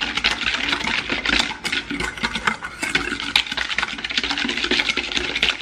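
Wire whisk beating thin liquid egg-yolk and milk batter in a stainless steel bowl: a rapid, continuous clatter of the wires clicking and scraping against the metal.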